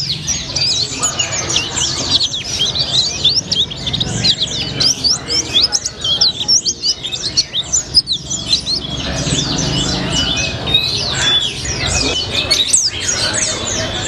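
Caged white-eye (pleci) singing nonstop: a rapid, high-pitched stream of chirps and twittering sweeps, in the sunbird-like style fanciers call 'rasa colibri'.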